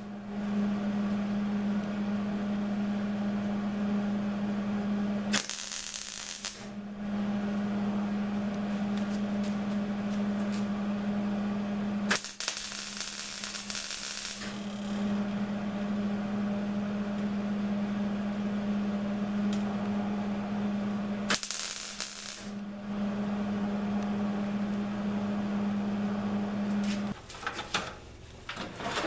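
Electric welder spot welding the steel of a tool box: a steady buzz in several runs of a few seconds each, broken by short loud hissing bursts, and stopping about two seconds before the end.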